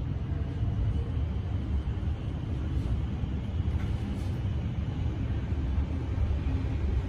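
Steady low rumble of a Melbourne Metro electric suburban train, heard on board.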